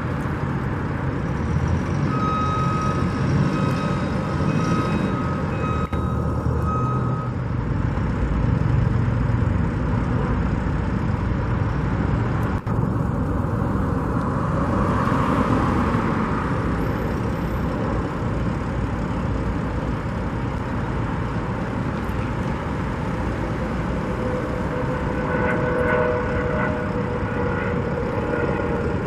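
Heavy construction vehicle engine running steadily, with a reversing alarm beeping for several seconds near the start and a brief pitched whine near the end.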